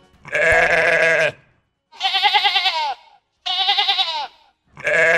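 Sheep bleating four times in a row, each bleat about a second long with a quavering, wavering pitch and short pauses between.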